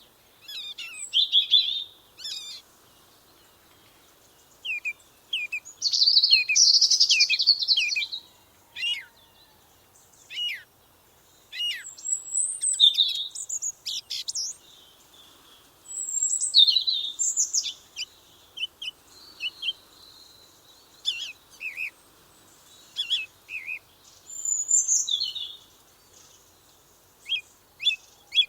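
Small songbirds chirping and singing in short bursts of high, quick notes and trills, phrase after phrase with brief pauses between them.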